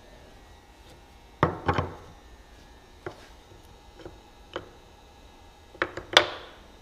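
Wooden-handled crossette forming tools being set down on a wooden workbench: a series of hard knocks and clacks. The loudest come in a double knock about a second and a half in and a cluster near the end, with single knocks between.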